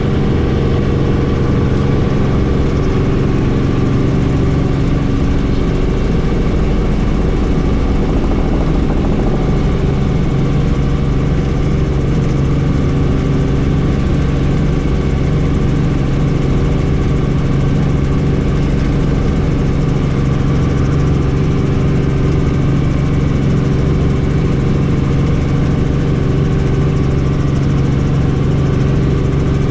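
Helicopter running steadily, heard from on board: a loud, continuous drone of rotor and turbine with an even hum, which grows steadier and stronger about nine seconds in.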